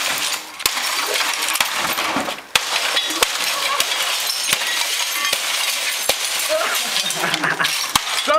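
Hammer blows striking the wrecked remains of a television set, about one a second, with glass and plastic fragments clinking and crackling between the strikes.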